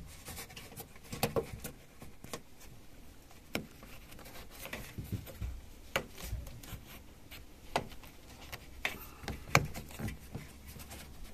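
Rubber cable grommets being pushed and worked back into place by hand on a car's tailgate: scattered taps, clicks and rubbing, the sharpest knock near the end.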